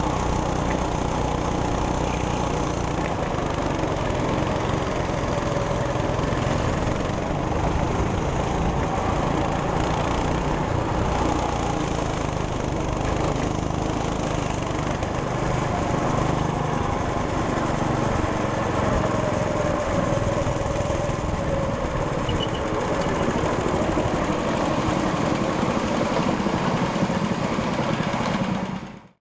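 A 200cc go-kart engine running as the kart drives around a track, recorded onboard. The sound is steady throughout and cuts off suddenly near the end.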